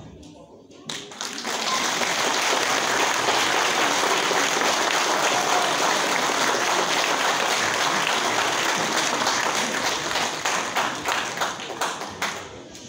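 Audience applauding, starting about a second in, then thinning out to scattered single claps near the end.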